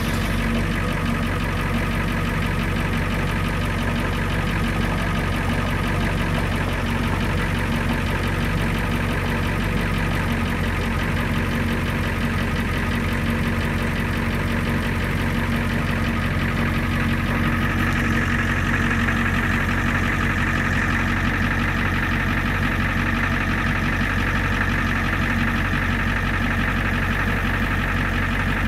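The truck's 7.3-litre V8 diesel engine running steadily at idle with a diesel clatter while the bucket boom is being worked. About two-thirds of the way through, a higher whine comes in over it.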